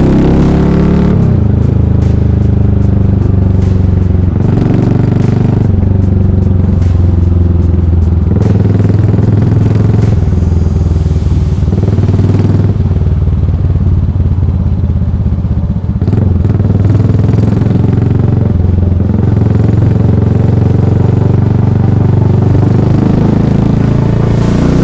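Yamaha SR400's air-cooled single-cylinder engine through a megaphone full exhaust, riding. The engine note drops at the start, holds fairly steady with a brief dip in the middle, and climbs again near the end.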